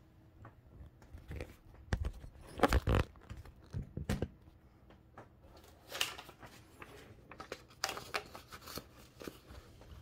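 Paper being fed into a Toshiba BW-3112 Japanese typewriter: paper rustling against the platen, with a handful of sharp mechanical clacks from the paper release and feed mechanism spread irregularly through.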